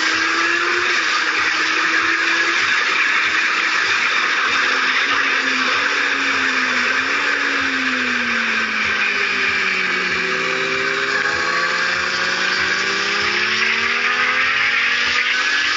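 Kawasaki Z750's inline-four engine heard from the saddle under a heavy rush of wind on the microphone. The revs fall steadily from about seven to eleven seconds in, then climb again toward the end as the bike accelerates.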